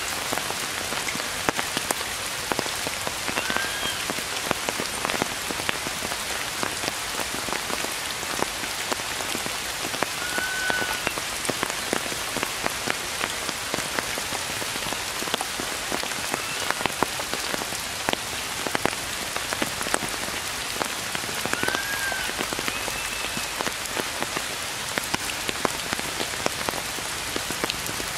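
Steady rain falling on forest foliage, a dense hiss full of individual drop ticks. A few short high chirps sound every few seconds over it.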